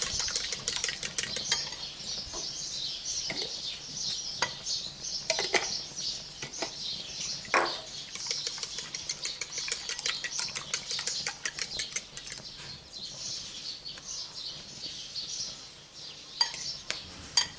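A fork beating eggs, milk and cinnamon in a bowl: quick runs of clinking taps of the fork against the bowl, fewer and more spaced out near the end.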